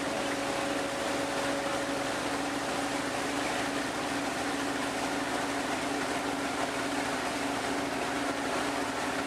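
Riverboat engine running steadily, a constant hum over the rushing hiss of water.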